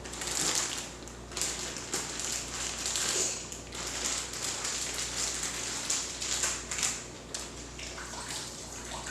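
Cooked broccoli and cauliflower being squeezed hard by hand to press out their water: irregular wet crushing noises, with water dripping and running out.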